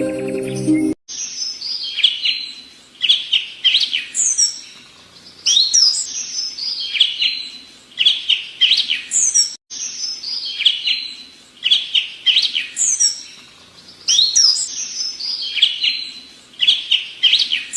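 A songbird singing: repeated phrases of quick, clear notes that slide down in pitch, with an occasional sharp high upslur, cut briefly about halfway through. Soft background music plays for about the first second before the song begins.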